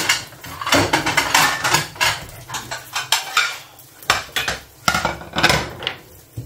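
Kitchen utensils and cookware clattering: an irregular run of clinks, knocks and short scrapes of metal against pans and dishes.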